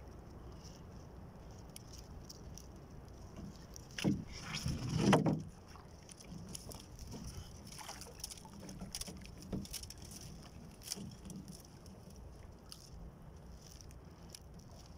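Water lapping and sloshing against a small outrigger boat, with scattered light clicks and rustles from fishing line being handled. About four seconds in, a louder rush of noise swells for a second and a half, then drops back.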